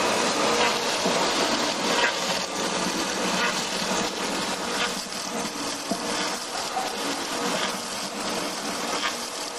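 Log-turning wood lathe running, its cutter shaving a rotating log: a steady machine hum under a dense rasp of cutting, with a few scattered knocks.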